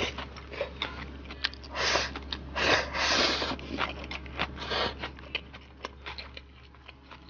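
Close-miked eating: slurps drawing in strands of pickled cabbage with rice, the longest about three seconds in, among wet chewing and small mouth clicks.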